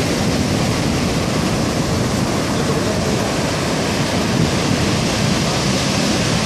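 Heavy sea surf breaking and washing up the beach: a steady, loud rush of waves.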